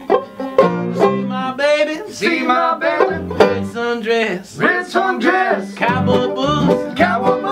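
A string band launches into an up-tempo song, with banjo and acoustic guitar playing together. The music starts about half a second in.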